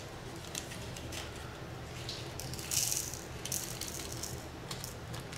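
Small nail-art crystals rattling and clicking as they are poured out of their container into a small dish, loudest about halfway through.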